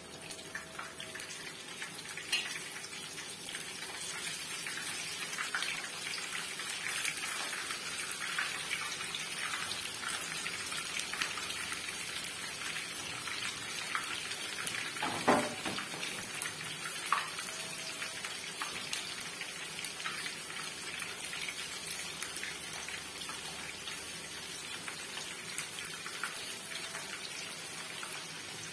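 Zucchini slices deep-frying in hot oil in a frying pan, a steady crackling sizzle of many tiny pops. It grows fuller about two seconds in as more slices go into the oil. One sharper knock comes about halfway through.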